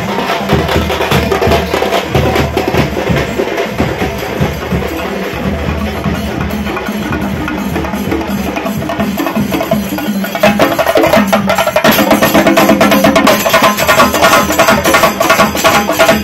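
A procession drum troupe beating barrel drums in a fast, dense rhythm. It gets suddenly louder about ten seconds in.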